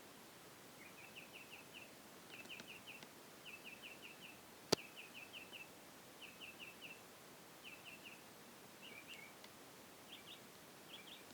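Northern mockingbird singing, faint: a string of short phrases, each of four or five quick high notes, repeated with brief pauses between. About halfway through there is a single sharp click, the loudest sound.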